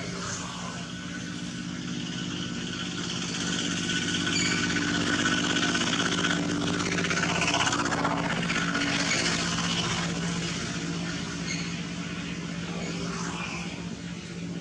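A motor engine running with a steady low hum, growing louder to a peak about halfway through and then fading, like a vehicle or aircraft passing by.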